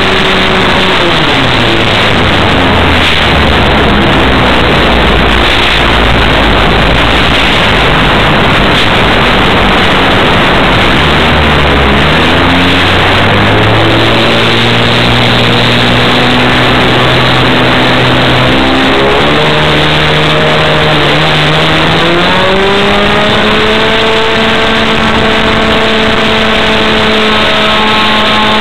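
Model airplane's .90 two-stroke glow engine, heard from a camera on the plane under a heavy rush of wind: throttled back to a low drone about a second in, opened up in steps through the middle, eased briefly, then run up to a high, steady whine for the last several seconds.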